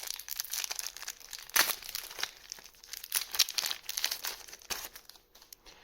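Foil Force of Will booster pack wrapper crinkling and tearing as it is opened, an irregular run of crackles with a louder one about a second and a half in.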